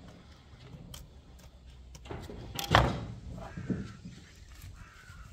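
A single loud thump nearly three seconds in, with a lighter knock about a second later, over a low steady background.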